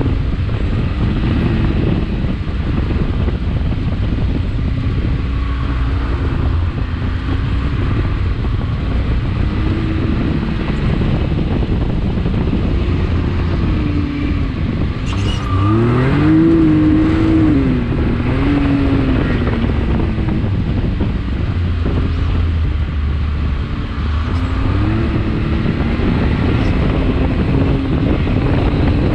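Can-Am Maverick X3 XRC Turbo's turbocharged three-cylinder engine running under load while driving over sand, its pitch rising and falling with the throttle, with the sharpest climb a little past halfway. Underneath it there is a dense low rumble.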